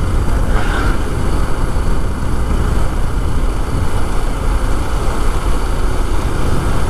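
Yamaha FZ motorcycle riding along at a steady speed: a constant, heavy wind rush over the microphone mixed with engine and road noise.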